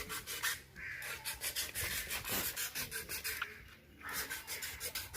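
Rhythmic hand scraping, stroke after stroke, easing off briefly a little before four seconds in.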